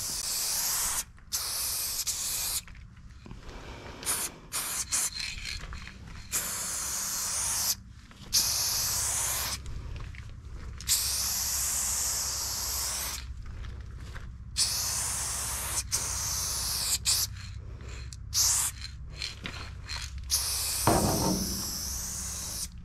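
Aerosol spray paint cans hissing in repeated on-and-off bursts, some a fraction of a second and some several seconds long.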